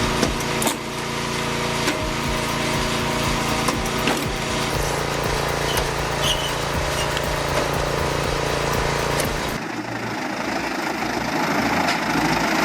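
A machine's engine runs steadily with scattered knocks and clicks. About three-quarters of the way through it cuts abruptly to a different, rougher machine noise that grows louder near the end.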